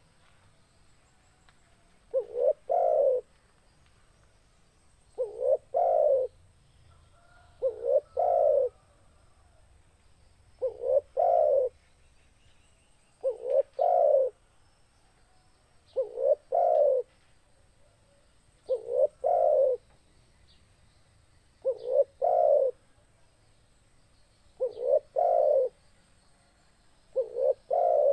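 Spotted dove (tekukur) cooing: a low phrase of a couple of short coos ending in a longer one, repeated about every two and a half to three seconds.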